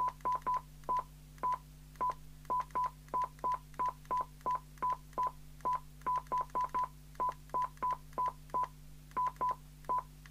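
Jopix GS60 CB radio's key beep: about thirty short, single-pitched beeps, each with a button click, in quick irregular runs of one to four. The buttons are pressed over and over to step the squelch setting up to its maximum. A faint steady low hum runs underneath.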